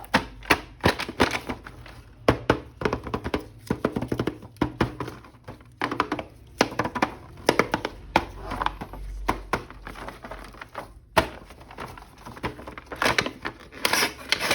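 Plastic action figure and its packaging being handled and opened: irregular clicks, taps and crinkles of hard plastic.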